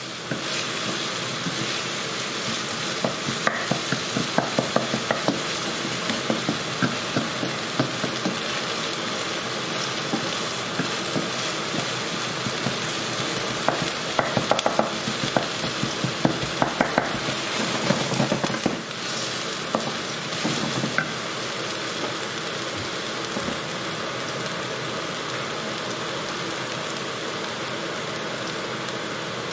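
Chopped onion sizzling in sunflower oil in a non-stick frying pan, with a wooden spatula stirring and scraping against the pan in quick clicks through the first two-thirds. After that the sizzle carries on alone.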